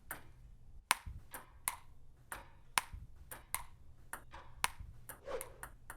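Ping-pong rally: a celluloid table-tennis ball struck back and forth by paddles and bouncing on the table, a string of sharp clicks about two a second.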